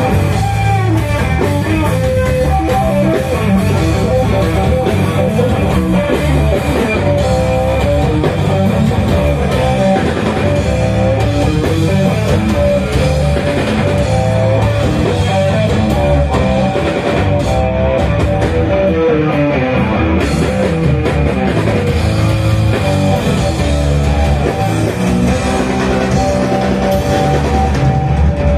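Live rock band playing loud: electric guitar over bass guitar and drums, the lead line bending up and down in pitch.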